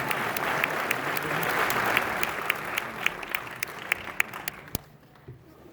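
Audience applauding. The dense clapping thins out and dies away near the end, leaving a few scattered claps.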